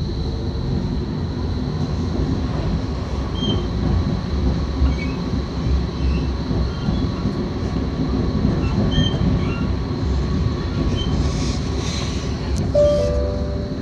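Tram in motion, heard from inside the passenger car: steady low rumble of the wheels on the rails, with a faint high whine, a few brief squeaks and a short tone near the end.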